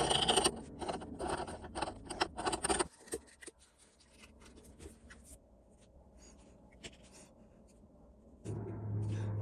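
Clicks, taps and scrapes of a steel plane lever cap and a small tin of enamel paint being handled on a cutting mat for about three seconds, then near quiet. A steady low hum starts near the end.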